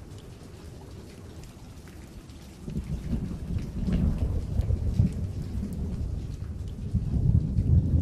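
Steady heavy rain hissing and pattering, joined about three seconds in by a low rolling thunder rumble that swells again near the end.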